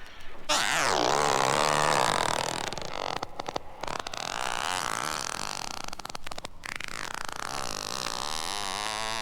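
Spooky sound effect from a Halloween record: drawn-out, wavering wails that swoop down in pitch and bend up and down, starting suddenly about half a second in, over a hissing background.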